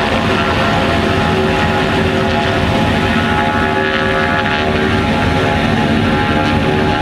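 Propeller-driven ultralight aircraft's piston engine running steadily at low power while taxiing, the propeller buzz continuous and even.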